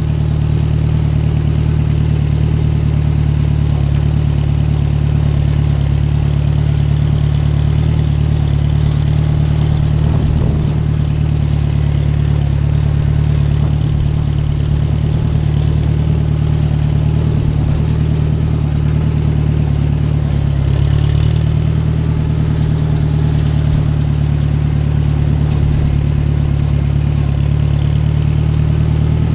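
Farm tractor engine running steadily under way, a constant low drone.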